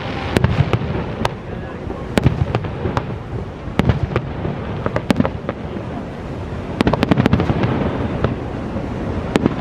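Fireworks going off in an irregular series of sharp bangs and crackles, with a quick flurry of reports about seven seconds in.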